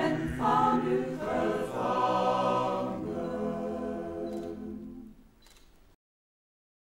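Mixed chamber choir singing a cappella, settling on a long held closing chord that slowly fades away. Two faint clicks come near the end, and then the sound cuts off to silence.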